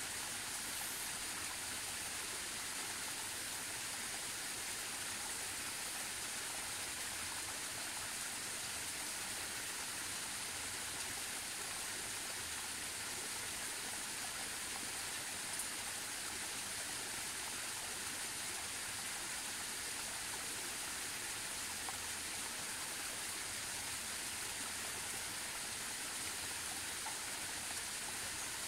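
Steady rushing of running water from a forest stream, even and unbroken throughout.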